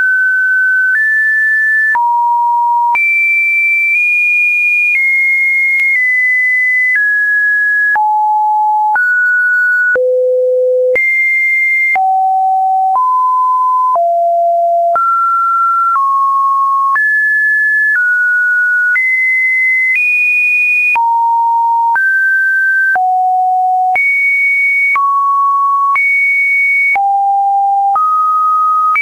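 Webdriver Torso test-video beeps: a string of pure electronic tones, each held about a second before jumping to a new pitch, skipping up and down between mid and high notes with no pauses.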